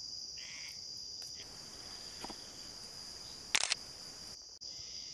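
Steady, high-pitched drone of insects, with one short, sharp crackle about three and a half seconds in.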